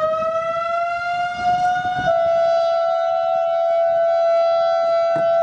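Outdoor civil-defense warning sirens, a Federal Signal 2001-SRN and an ASC I-Force, sounding a steady tone during a siren test. The pitch creeps up as the siren comes up to speed, and about two seconds in a second, slightly lower steady tone joins it.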